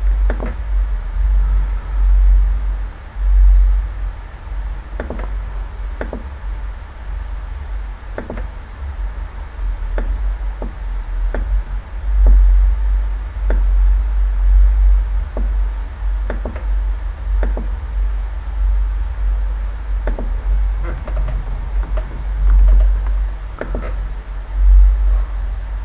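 Sharp single clicks of a computer mouse and keyboard, roughly one a second, over a steady low rumble.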